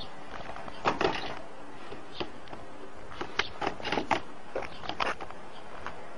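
Knocks and footsteps on a dumpster's ridged lid: a couple of louder thuds about a second in, then a run of lighter knocks between about three and five seconds in, over a steady hiss.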